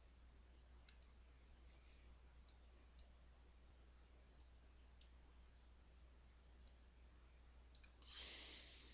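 Faint computer mouse clicks, a single click every second or so, over a low steady hum, with a short rush of hiss near the end.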